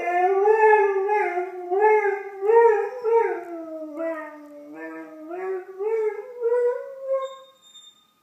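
Doberman howling, set off by distant emergency sirens: one long howl that wavers up and down in pitch and trails off near the end.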